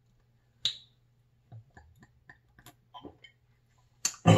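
Swigging soju straight from a glass bottle: a sharp click as the bottle meets the lips, a few soft swallowing sounds, then a short, loud, harsh breath out near the end as the drink's burn hits.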